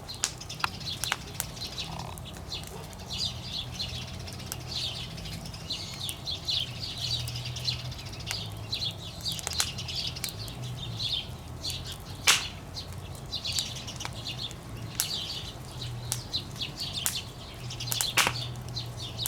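Wood campfire burning hard, with continuous crackling, sizzling and sharp pops, and two louder snaps, one about two-thirds of the way in and one near the end. A low steady hum runs underneath.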